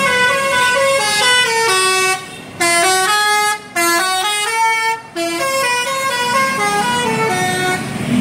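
A bus's 'telolet Basuri' melodic horn playing a tune, a run of clear stepped horn notes broken by short pauses about two, three and a half and five seconds in.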